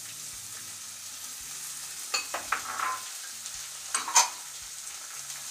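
Rice and freshly added red bell pepper strips sizzling as they fry in oil in a metal pot. A wooden spatula scrapes and knocks against the pot a few times around the middle, with the loudest knock near the end.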